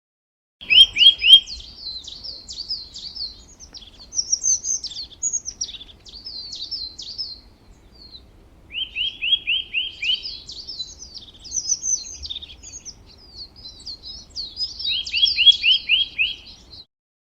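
A songbird singing. Varied quick twittering is broken three times by a fast run of five or six repeated sliding notes. The song cuts off suddenly shortly before the end.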